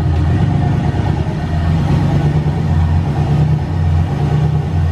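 Pickup truck's swapped, turbocharged LS V8 running low and uneven as the truck creeps forward, its low rumble swelling and fading about once a second.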